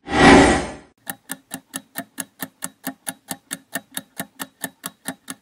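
A short loud rushing noise as the screen changes, then a countdown clock sound effect ticking steadily, about four to five ticks a second.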